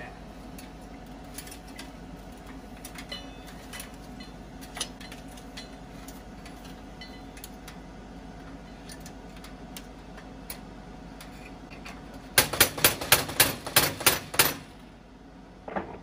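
African grey parrot clambering upside down on the bars of an aluminium cage: scattered light clicks of its claws on the metal, then about two seconds of loud rapid rattling, roughly five knocks a second, as it shakes the herb tray against the cage top. One more short rattle comes near the end.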